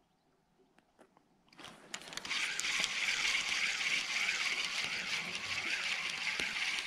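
Rushing river water: a steady hiss that comes in abruptly about two seconds in and holds, with a slight ripple. Before it there are a few faint handling clicks.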